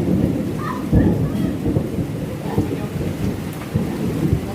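Thunder rumbling over heavy rain, the rumble swelling with sharper surges about a second in and again near the end.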